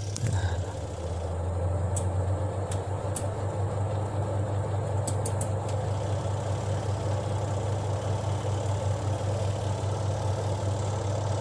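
Spin dryer of a twin-tub washing machine running with a steady motor hum and a creaking squeak. The squeak comes from a loose bolt on the spin shaft.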